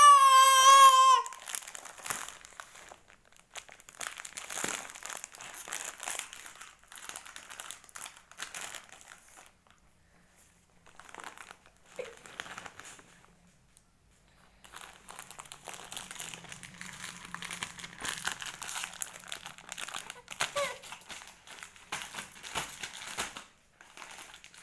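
A baby's loud, high-pitched vocal squeal for about the first second. It is followed by long stretches of irregular crinkling and rustling from things being handled on the bed, with a quieter pause in the middle.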